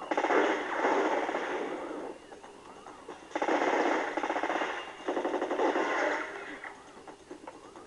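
Automatic gunfire in three long bursts: one of about two seconds, then after a short pause two of about a second and a half each, back to back.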